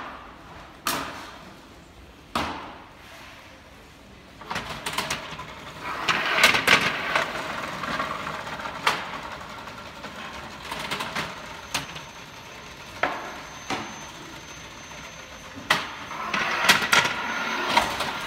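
Sharp metal clunks at intervals, with two longer stretches of rolling, rattling clatter, about a third of the way in and near the end, from an aluminium-tube karakuri conveyor rig: trays and plates running over its rollers and ball transfers.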